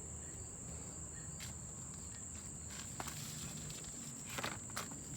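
Crickets chirping in a steady high trill, with a few faint clicks and knocks of handling.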